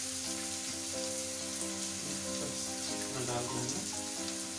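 Chopped onions frying in oil in a kadhai, an even sizzle, stirred with a spatula. Soft music with held, stepping notes plays underneath.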